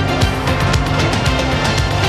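Theme music with a fast, steady beat.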